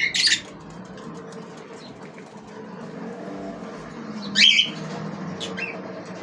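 Pet birds squawking: two sharp, loud calls at the start, another about four and a half seconds in, then a few short chirps, over a steady low hum.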